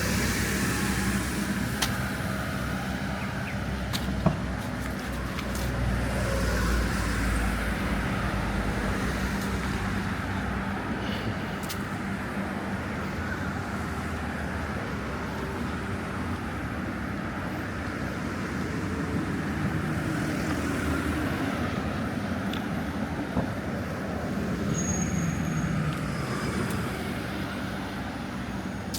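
City road traffic: a steady hum of cars going by, with low engine-and-tyre rumbles swelling a few times as vehicles pass close.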